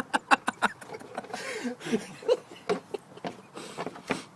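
Irregular clicks, knocks and plastic rattles of a car's plastic under-engine splash shield being pried and pulled loose from its clips, with a few faint low mutters in the middle.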